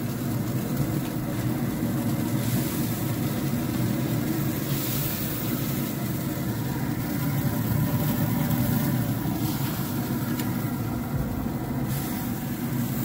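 Traeger pellet grill running with its lid open: a steady low mechanical hum, with burger patties sizzling softly on the grate as a hiss that comes and goes.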